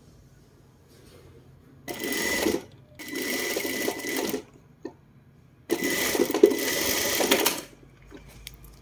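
Sewing machine stitching a seam in three short runs of one to two seconds each, with a steady high motor whine, stopping briefly between runs.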